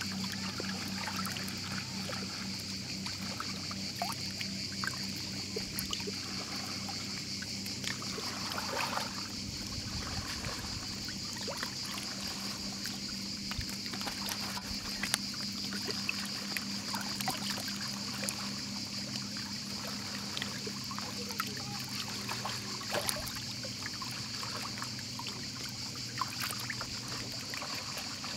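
Shallow sea water lapping and small splashes around a wading dog's legs, with scattered soft ticks. A steady low hum and a steady high hiss run underneath.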